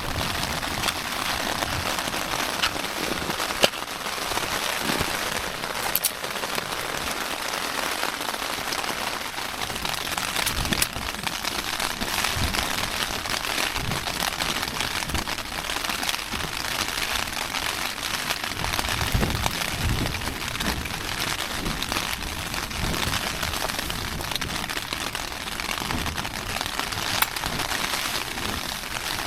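Heavy rain pattering densely and steadily on the flysheet of a Nordisk Oppland 2LW tent, with a few low thumps here and there.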